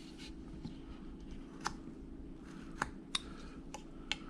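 Carving knife cutting into a wood carving, giving a few short, sharp clicks and snicks as the blade bites and small chips come out, over a faint steady hum.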